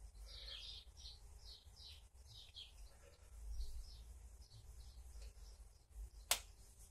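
A small bird chirping repeatedly and faintly in the background, short high chirps every fraction of a second. A single sharp click sounds near the end.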